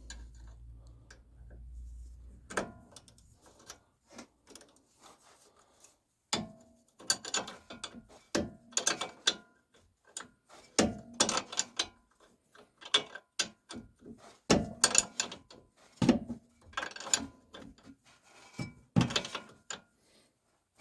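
A 17 mm wrench clicking in short bursts of ticks, one every second or two, as the nut of a new stabilizer link is tightened stroke by stroke on a Renault Duster's suspension.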